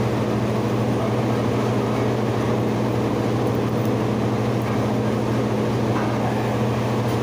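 Ventilation fan unit running with a steady, even hum.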